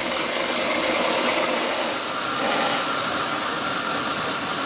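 Steady hiss of steam escaping from a 5-inch-gauge live-steam model BR 50 locomotive while it is being fired up to raise steam. A faint high steady tone joins about two seconds in.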